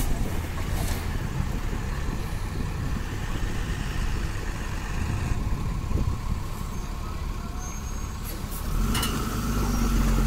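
Heavy multi-axle goods truck's diesel engine labouring at low speed through deep mud, a steady low rumble that grows louder near the end.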